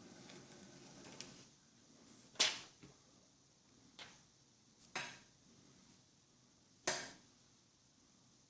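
Four sharp clicks and taps, a second or two apart, from handling a tempered-glass screen protector and a phone, with faint room hum in between.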